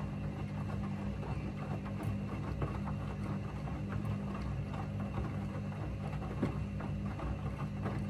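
Candy Smart front-loading washing machine tumbling a load of coloured laundry in soapy wash water: a steady low motor hum, with sloshing and small irregular knocks as the clothes fall in the drum.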